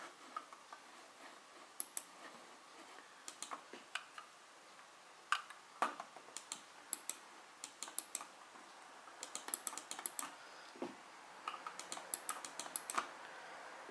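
Bluetooth computer mouse buttons clicked in irregular bursts of quick, sharp clicks, with faster runs around the middle and near the end.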